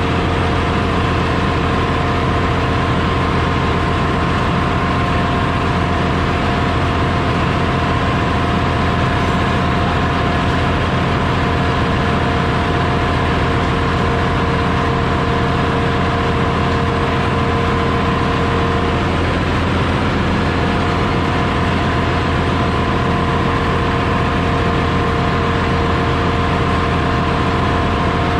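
Steady, loud din of a ship's engine room: running engines and machinery making a low drone with a few constant whining tones above it.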